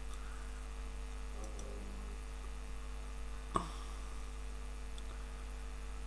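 Steady electrical mains hum: a low drone with a few faint steady tones above it, broken once by a single short click about three and a half seconds in.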